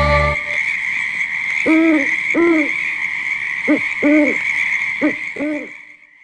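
Owl hooting: three pairs of short hoots, each rising and falling in pitch, over a steady high-pitched hiss that fades out near the end. The tail of a rock song with guitar cuts off in the first half second.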